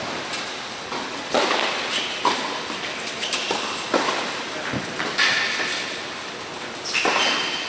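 Tennis ball being struck by racquets and bouncing on an indoor hard court during a rally, a string of sharp knocks about one a second, each echoing in the hall. Short squeaks of shoes on the court follow several of the hits.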